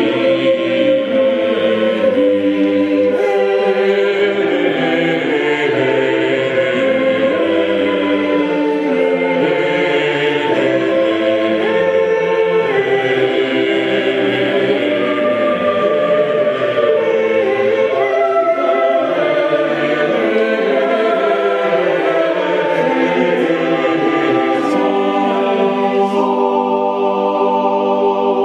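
Church choir singing Latin liturgical chant, a continuous run of held notes moving from pitch to pitch.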